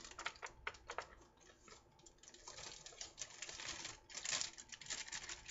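Plastic bag of dry brownie mix crinkling and rustling as it is emptied into a mixing bowl: a run of quick crackles, getting denser about halfway through.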